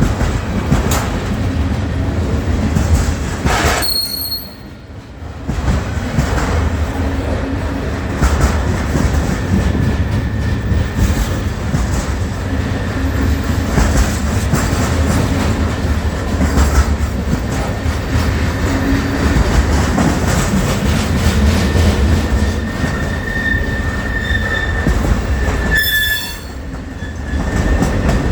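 Train running on rails, with a steady low rumble and wheel clatter. A thin, high wheel squeal comes in near the end. The sound drops briefly twice.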